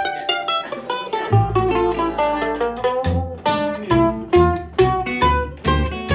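Resonator mandolin picking a quick run of single notes in an instrumental break, with low bass notes sounding on the beat underneath.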